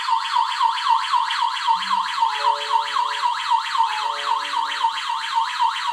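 Wi-Fi home alarm system's siren sounding, set off from the phone app's SOS button: a loud electronic wail of rapidly repeating rising sweeps, several a second.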